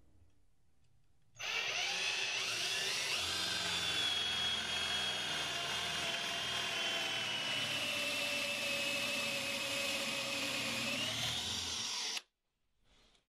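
Cordless drill boring a Forstner bit into wood: a steady motor whine with cutting noise starts about a second and a half in. Its pitch sags slowly, rises again, then stops abruptly near the end.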